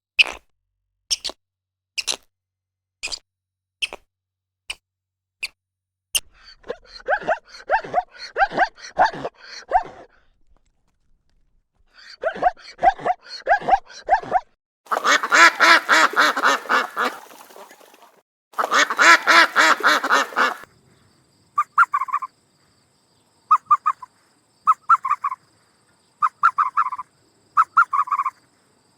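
A series of different animal calls: about seven sharp clicks, then quick pulsing chattering calls, then two harsh, noisy calls of about two seconds each, then a run of short repeated calls.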